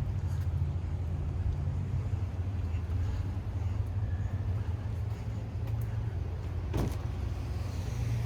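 A car engine running steadily at idle with a deep, low rumble, and a single sharp click just before the end.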